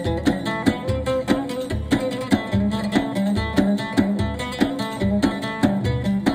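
Long-necked saz playing a quick plucked melody in a steady rhythm, over an accompaniment with a deep bass line.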